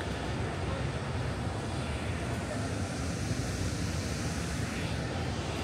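Steady low rumble of outdoor city ambience: a distant traffic drone.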